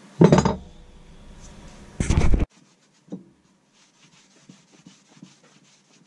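Heavy metal vise parts clanking twice against each other and the wooden bench, the second clatter cut off abruptly; then faint rubbing and small clicks of a cloth wiping a vise jaw.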